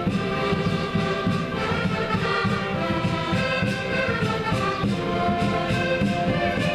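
Several concertinas playing a folk tune together: held reedy chords over a pulsing bass.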